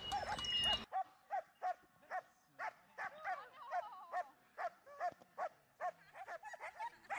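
German shepherd dog barking hard and fast, about two to three short barks a second: defence barking in protection training, directed at a helper with a bite sleeve.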